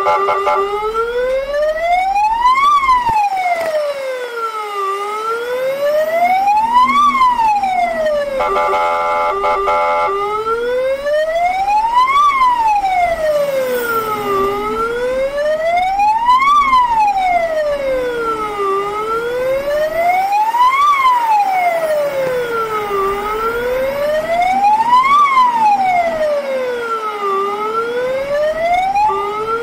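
Fire truck siren wailing in a slow rise and fall, about one cycle every four seconds. A steady horn blast cuts off just after the start, and another sounds for a second or so about nine seconds in.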